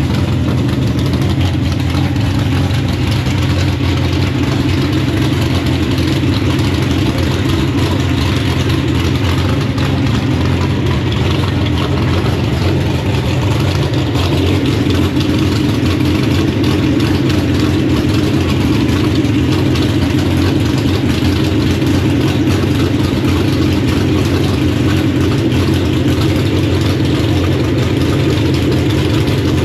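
Drag-racing engine idling loud and steady in the pits after being fired up, its note shifting slightly about halfway through.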